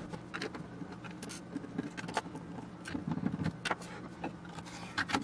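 Faint scattered clicks and light rattles of an avionics radio control box being handled and opened, over a low steady hum.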